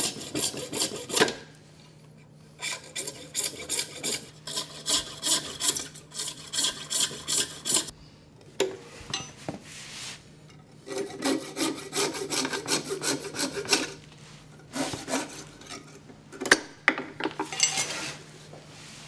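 Coping saw cutting walrus ivory held in a vise: rasping back-and-forth strokes, about two or three a second, in several runs broken by short pauses.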